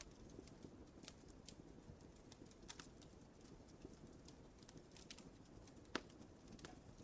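Wood fire burning in a fireplace: faint, irregular crackles and pops over a low, steady rumble, with one sharper, louder pop near the end.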